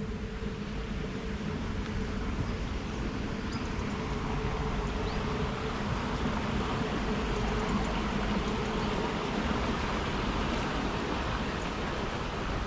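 Steady wind and movement noise on a moving action camera's microphone: a constant rushing with a low rumble and a faint steady hum.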